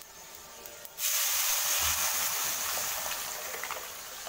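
Tomato rasam mixture poured into a kadai of hot tempering oil, setting off a sudden loud hiss and sizzle about a second in that slowly dies down.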